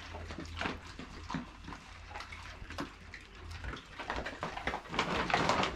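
Several dogs, pit bulls and a wolfdog among them, crunching dry kibble off a wooden floor together. It is a dense, irregular crunching and chewing that grows busier toward the end.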